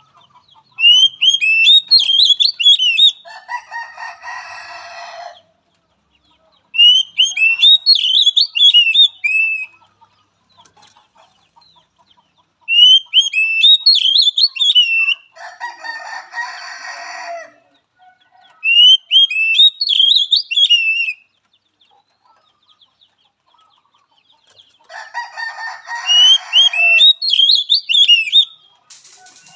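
Oriental magpie-robin singing: five bouts of sweeping whistled notes, about six seconds apart, three of them joined by a harsh, rasping chatter.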